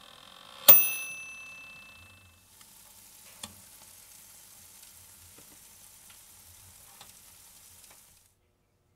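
Toaster oven's timer bell dings once about a second in, a bright ring that fades over a second or so. Then the shiitake caps, topped with squid shiokara and mayonnaise, sizzle with a soft high hiss and a few small crackles.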